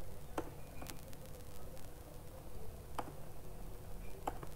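A handful of sharp computer keyboard key clicks, irregularly spaced, over a low steady hum.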